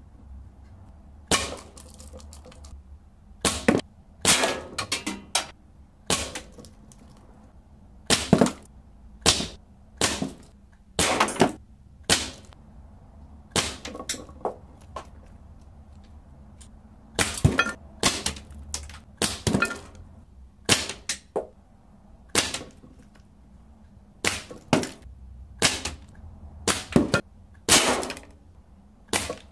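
CO2 air rifle firing a long string of sharp shots at irregular intervals, many followed closely by a second snap as the pellet strikes the hollow plastic skull targets.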